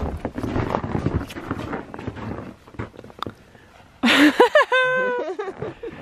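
Footsteps crunching through packed snow. About four seconds in, a sudden loud, high-pitched vocal cry of about a second and a half drops in pitch and then holds.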